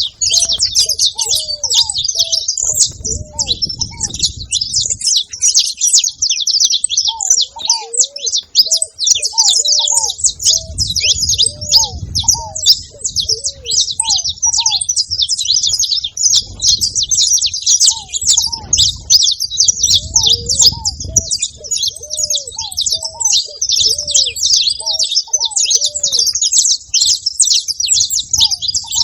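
Several saffron finches chirping and singing together in a dense, continuous chatter. Beneath it, a lower-pitched call repeats in short phrases every few seconds.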